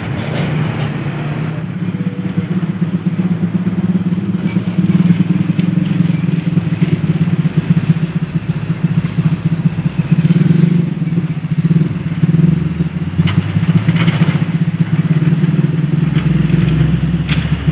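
Road vehicle engines, motorcycles and trucks, running steadily at a railway level crossing, with a deeper rumble near the end.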